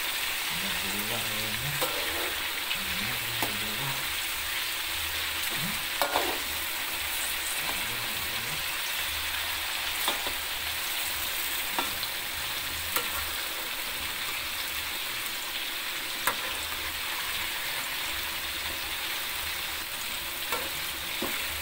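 Chicken pieces frying in bubbling hot oil in a wok, a steady sizzle, with now and then a sharp click or scrape of the spatula against the wok as the pieces are turned.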